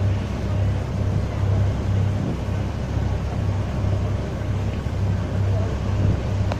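A boat's engine running underway: a low drone that throbs in a steady beat, under a steady hiss of wind and water.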